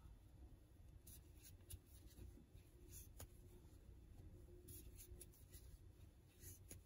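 Near silence, with faint rubbing and a few scattered light ticks of a crochet hook working gray yarn in single crochet stitches.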